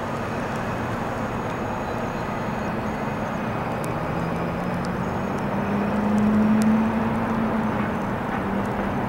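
Aircraft flying at night, a steady engine drone with a low hum that swells about two-thirds of the way through.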